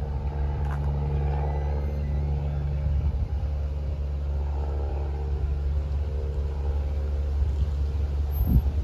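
Steady low hum of an idling engine, even in pitch and level, with a buffet of wind on the microphone near the end.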